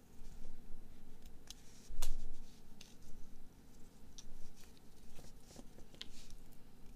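Small clicks and ticks of a plastic whistle-style USB TF card reader being handled and fitted together between the fingers, the loudest click about two seconds in.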